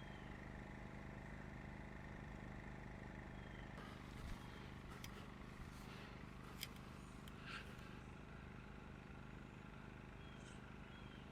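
Amerisun 2500W inverter generator running at no load, a faint steady hum heard from about 25 feet away. A few faint clicks sound around the middle.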